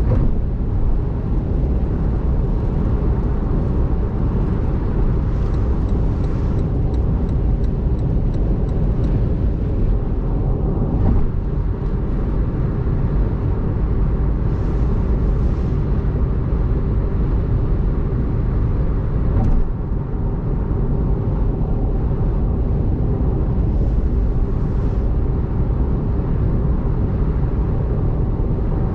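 Car travelling at expressway speed on wet road in heavy rain: steady, loud, low tyre and road noise with a faint constant hum. Two brief hissing swishes, one near the middle and one near the end.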